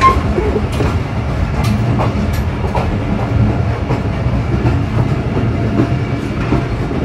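Passenger train moving slowly and gathering speed, heard from inside a carriage at an open door: a steady rumble of the carriage on the rails with scattered wheel clacks.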